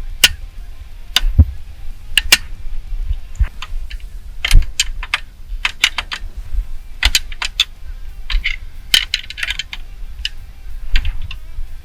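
A large screwdriver working a snap ring off a steering column: irregular sharp metallic clicks, taps and scrapes of steel on steel.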